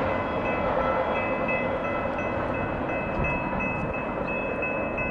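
Union Pacific intermodal freight train running, a steady noise of the train with a thin steady high whine over it.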